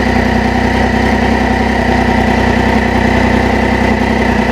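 Triumph Triple's three-cylinder engine idling steadily, its throttle bodies just synchronised.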